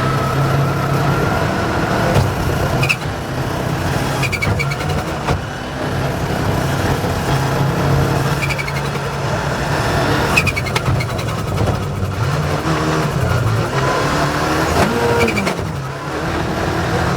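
Rally car's engine driven hard, its revs rising and dropping repeatedly, with scattered sharp knocks.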